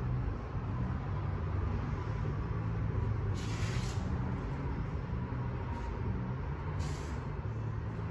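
Steady low mechanical hum of shop machinery, with two short bursts of hiss: one about three and a half seconds in, lasting under a second, and a briefer one about seven seconds in.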